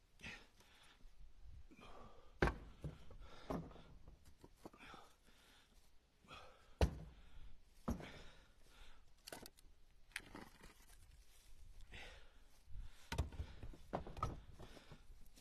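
Pieces of split seasoned red oak firewood being pulled off a stacked pile and tossed into a pickup truck bed: a run of irregular wooden knocks and thunks, the loudest about two and a half and seven seconds in.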